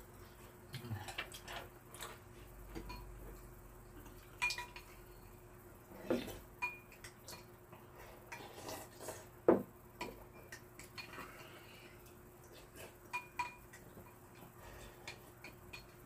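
Metal chopsticks and spoon clinking and scraping against a ceramic rice bowl: scattered light clinks, some with a brief ring, the sharpest about nine and a half seconds in.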